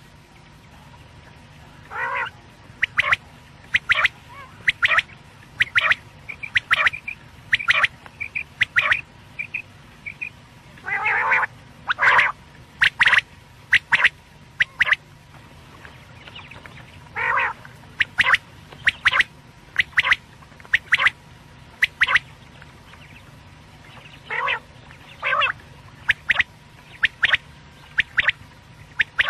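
Quail calling repeatedly: short, sharp calls about once a second, broken by a few longer, lower calls, over a faint steady hum.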